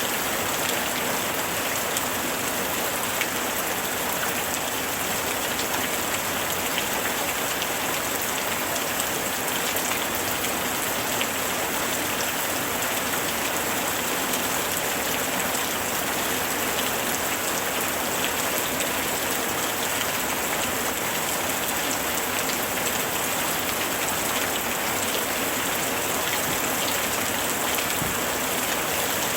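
Steady summer rain falling on a surface, an even hiss with many small drop ticks and no pauses.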